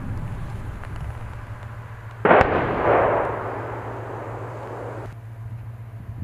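A distant shell exploding on impact: one sudden boom about two seconds in, followed by a rolling echo that fades over the next few seconds.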